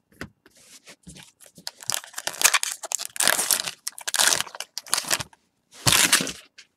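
Baseball card packs and cards being handled, crinkling and rustling in irregular bursts.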